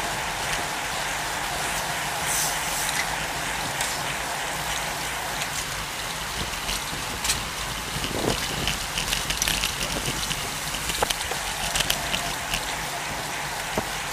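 Steady rushing wind and road noise on the microphone of a bicycle-mounted camera riding in a pack of road bikes, with scattered clicks and ticks that come thicker about eight seconds in.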